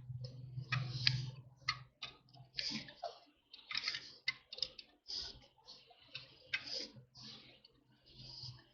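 Regular wrench clicking and scraping on a metal brake line flare nut in an irregular series of short strokes as the fitting is turned tight.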